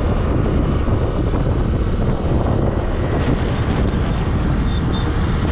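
Steady wind rushing over the microphone from a moving vehicle, with the vehicle's running and road noise underneath.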